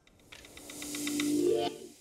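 Outro music: a rising swell with a quick ticking beat that builds up, then cuts off sharply near the end, leaving a short fading tail.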